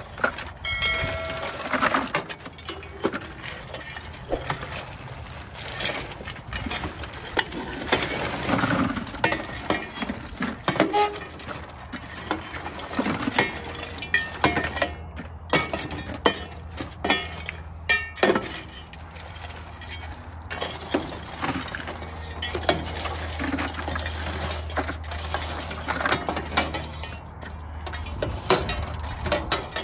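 Irregular clinking and clattering of hard objects, many short knocks with no steady rhythm. A low steady hum joins in about two-thirds of the way through.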